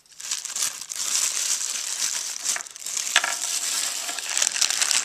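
Clear plastic Ziploc bags crinkling and rustling as a hand rummages through them, a continuous crackly sound full of small clicks.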